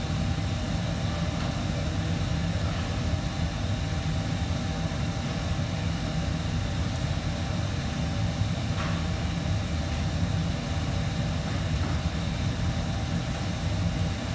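Steady low drone of commercial kitchen machinery, with a few faint steady whines above it.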